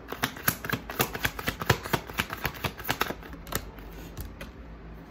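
Tarot cards being shuffled in the hands: a fast run of crisp clicks and flicks for about three and a half seconds, then a few scattered taps.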